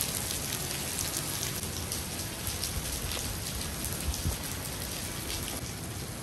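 Steady rain falling on a surface: an even hiss thick with small, sharp drop ticks.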